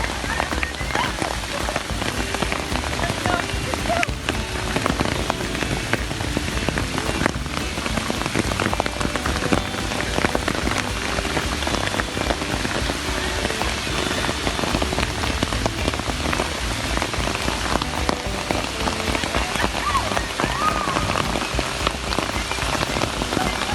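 Rain falling steadily, a dense, even patter of drops on surfaces.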